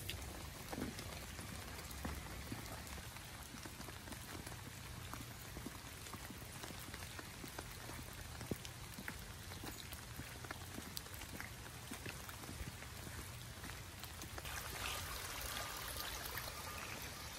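Steady rain falling on a paved path and leaves, with scattered single drops ticking throughout. Near the end it grows a little louder with rainwater runoff rushing along a roadside ditch.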